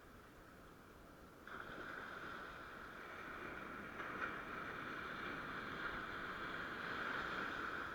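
Surf washing on the shore, a steady rushing hiss that comes in suddenly about a second and a half in.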